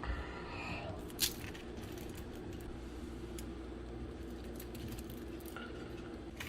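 Faint clinks and taps of seasoning containers and utensils being handled, with one sharper click about a second in, over a steady low hum.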